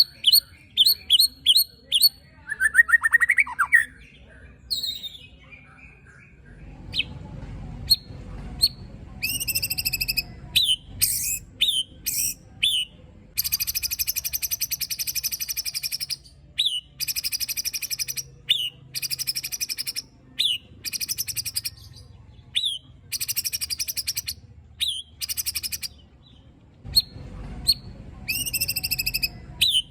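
White-rumped shama (murai batu) giving harsh aggressive calls: strings of short, sharp, rising notes ('tembakan') alternate with long rasping bursts of one to three seconds ('besetan'), with short pauses between phrases. This is the harsh call material used to provoke another shama into singing.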